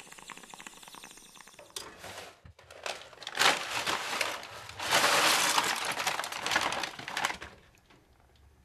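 Dense crackling, crinkling noise made of many tiny clicks, faint at first, loud from about three seconds in, and cutting off abruptly near the end.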